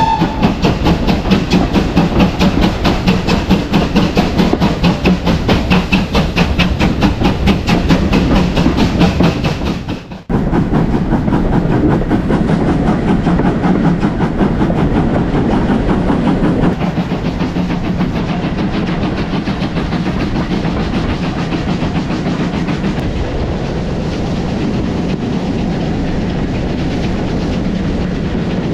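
Steam locomotive Wightwick Hall, a GWR Modified Hall 4-6-0, working its train with fast, even exhaust beats, heard from close behind its tender. About ten seconds in this gives way to a steadier running rumble of the train with wheels clicking over the rail joints.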